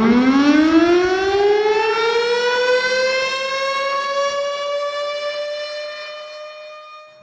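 Electric motor siren winding up: one long tone that rises steadily in pitch, levels off, and slowly fades away. It is the Ramadan siren that signals the hour to break the fast.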